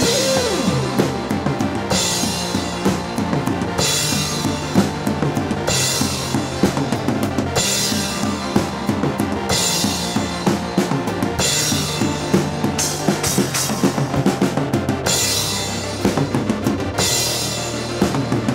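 Background music driven by a drum kit, with a bass line that changes note about every two seconds.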